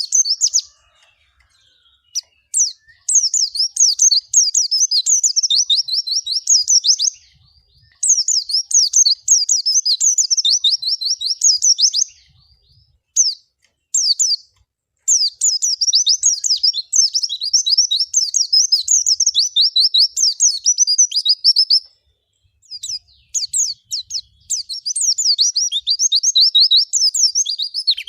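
White-eye (pleci) singing: long, fast runs of high, rapidly repeated chirping notes, broken by a few short pauses.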